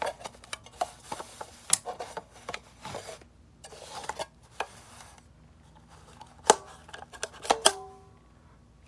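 A hard drive being handled and seated in a plastic docking station: rubbing and scraping against the casing and a string of small clicks and knocks. Two sharp knocks near the end, the last one briefly ringing.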